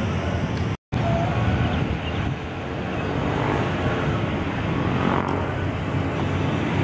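Steady noise of road traffic in the open air. It drops out completely for a split second just under a second in.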